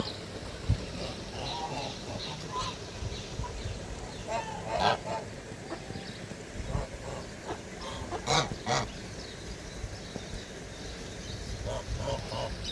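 Geese honking, with ducks calling among them, in short scattered calls; the loudest come about five seconds in and as a quick pair a little past the middle.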